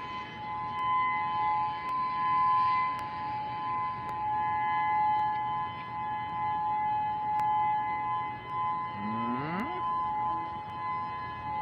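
Honolulu's outdoor civil defense warning siren sounding its steady two-tone test signal, the Attention Alert tone of the monthly test. Its loudness swells and fades every couple of seconds. About nine seconds in, a brief rising voice-like call sounds over it.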